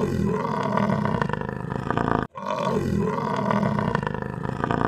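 Heavy, rasping breathing of a large animal, meant as a buffalo's: two long breaths of nearly three seconds each, with a brief gap between.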